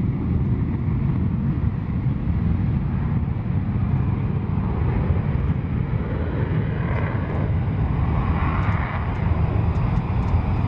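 Panavia Tornado jets' twin RB199 afterburning turbofans: one jet on its afterburner take-off roll, pulling away down the runway, with a second Tornado's engines running nearby. A loud, steady, deep roar, with a higher hiss swelling about seven seconds in.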